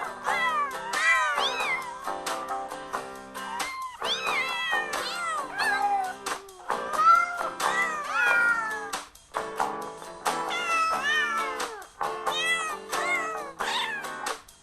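Kitten meowing over and over, each call rising then falling in pitch, the calls of a kitten missing its mother, over background guitar music.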